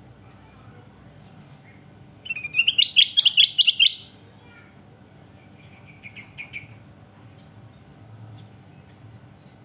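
Kutilang emas bulbul singing: a loud, fast run of about ten bright chirping notes a couple of seconds in, lasting nearly two seconds, then a fainter, shorter phrase a couple of seconds later.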